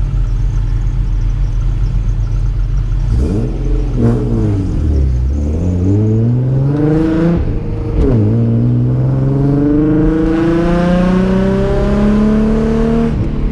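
Car engine accelerating hard through the gears. It runs low and steady, then about three seconds in the revs climb. A gear change comes at about eight seconds, followed by a long pull up through the next gear that cuts off near the end.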